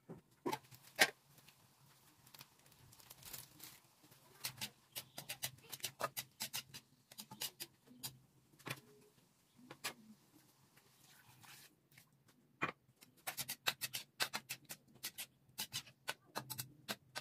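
A metal spatula clinking and scraping against an aluminium wok while chicken livers and gizzards are stirred in simmering adobo sauce, in quick runs of sharp taps. Two louder clanks about a second in fit the aluminium lid being lifted off the wok.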